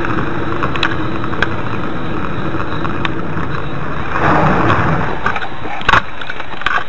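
A car running, a steady hum and rush of vehicle noise, with a few light clicks and a louder swell of noise about four seconds in.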